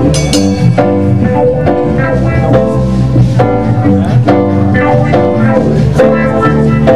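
Live roots reggae band playing loudly: bass and drums come in right at the start beneath keyboard and guitar chords struck in a steady rhythm.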